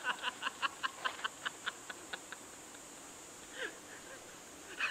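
Laughter trailing off in a quick run of short 'ha' pulses that fade out over about two seconds, with a brief laugh again near the end.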